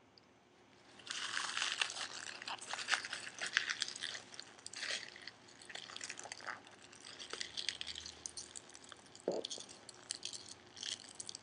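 A big mouthful of raw spinach leaves being bitten and chewed close up, a crisp crunching and crackling that starts about a second in, is densest over the next few seconds, then turns sparser.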